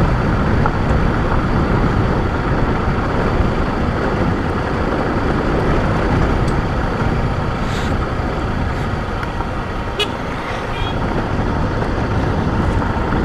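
Motorcycle riding along an unpaved country road: a steady rumble of engine, tyres and rushing air, with a few faint clicks and rattles.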